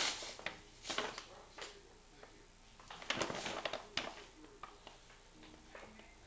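Brown paper grocery bag rustling and crinkling in short, irregular bursts as a cat moves about inside it, busiest about three seconds in.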